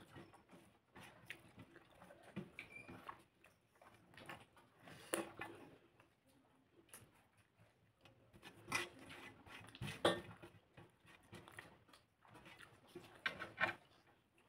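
Quiet eating sounds: chewing and wet mouth smacks as rice is eaten by hand, with fingers mixing food on the plate. They come in short scattered clicks, a few louder than the rest.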